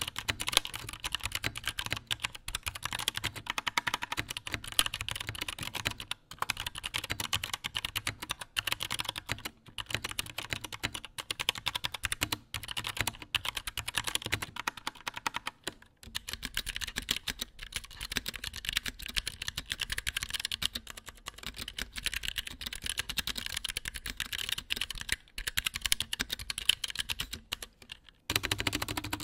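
Continuous fast typing on an Anne Pro 2 60% mechanical keyboard with Kailh Box Brown tactile switches, a dense run of key clicks. About sixteen seconds in, the sound changes to the same keyboard rebuilt in an aluminium case with blank cherry-profile keycaps, giving a deeper, fuller key sound.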